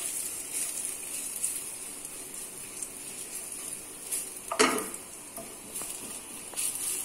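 Chopped garlic sizzling in hot oil in a nonstick frying pan, stirred with a wooden spatula, a steady high hiss. There is a sharp knock about four and a half seconds in.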